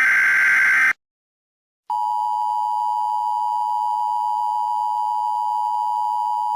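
Emergency Alert System broadcast: the last one-second burst of the SAME header's digital data tones ends about a second in. After a second of silence, the two-tone EAS attention signal (853 and 960 Hz) starts and holds steady.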